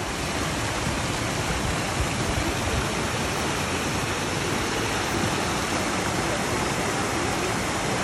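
Artificial rock waterfall cascading into a pond: a steady rush of falling water.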